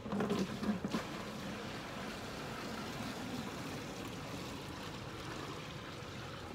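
Water from a bucket pouring and splashing into the goats' water container, a steady rush, after a few knocks of the bucket in the first second.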